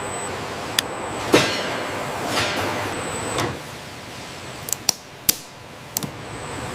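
A few sharp clicks and knocks over a steady hiss, with one louder knock about a second and a half in and a quick run of clicks around five seconds in.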